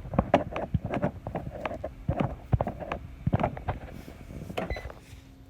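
Irregular small clicks and knocks of hands handling door parts, quieter near the end.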